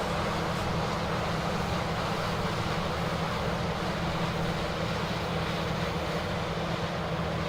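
Engine running steadily: a low, even hum under a constant rushing noise.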